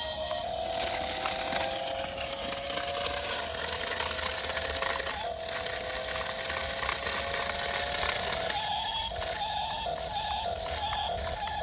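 Toy RC stunt car's small electric motors whining as it drives, the pitch shifting slowly with speed. From about eight and a half seconds in, the whine comes in short repeated spurts, about two a second.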